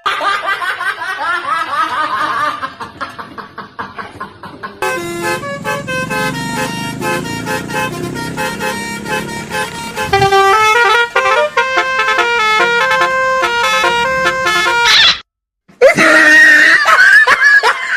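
Multi-tone 'telolet' bus horns playing quick melodic note sequences, with gliding wails at the start and again near the end, cut by a brief silence about three-quarters of the way through.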